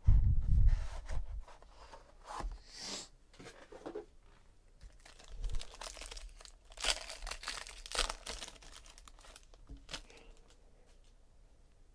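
A heavy thump at the start, then sports-card box packaging being torn open and its plastic wrapping crinkled and ripped in irregular bursts, loudest about seven to eight seconds in.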